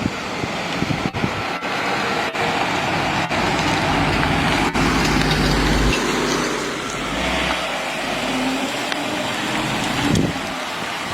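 A 1959 Cadillac's V8 running as the car cruises, with steady road and tyre noise and a few brief clicks.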